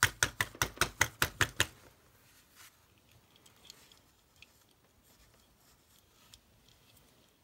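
A quick run of sharp taps, about five a second, on a die-cast metal Hot Wheels van while working to free its rivet. It stops after under two seconds, followed by only faint scattered small clicks.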